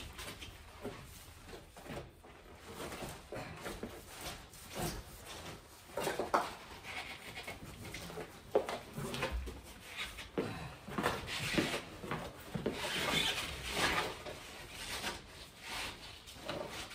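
Irregular scraping and rubbing from hand work on the old PVC drain pipe and the wood framing at the foot of a stud wall, with one sharp click about halfway through.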